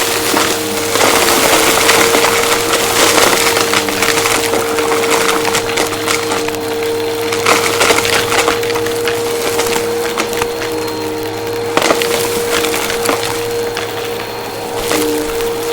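Vacuum cleaner running with a steady motor whine while it picks up crunchy debris, which crackles and clicks irregularly as it is sucked in, with an occasional sharper click.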